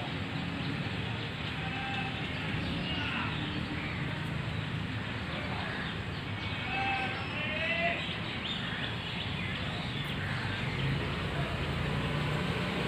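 Outdoor ambience: a steady background rush with a few short, high chirps scattered through it, the clearest cluster about seven seconds in.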